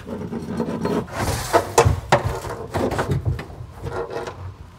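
Hands handling and fitting a plastic water tank and hose fittings into a pickup truck's moulded plastic in-bed trunk: scattered knocks and clicks, with a short scraping rub a little over a second in and the sharpest knocks about two seconds in.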